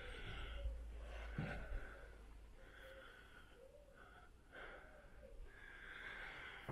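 A person breathing close to the microphone: a series of soft, faint breaths in and out, about one every second. A low rumble under the first couple of seconds.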